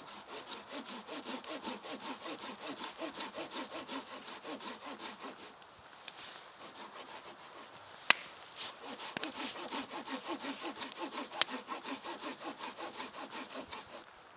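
Hand saw cutting wood in quick, even back-and-forth strokes. The strokes pause briefly about halfway through, and there is a sharp crack about eight seconds in and a smaller one near eleven and a half seconds.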